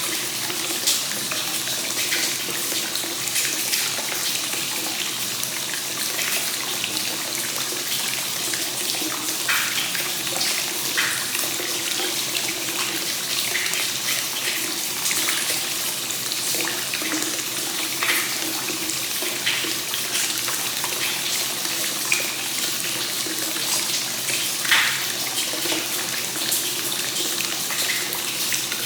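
Hot spring water flowing steadily and continuously into a bath, a free-flowing (kakenagashi) source-water supply, with a few brief, sharper splashes now and then.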